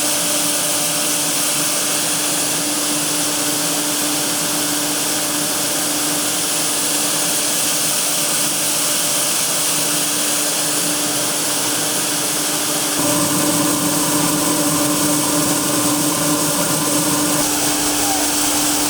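Claas combine harvester running with a steady mechanical drone and hiss. About thirteen seconds in it grows louder and deeper, and some of the added tones drop away a few seconds later.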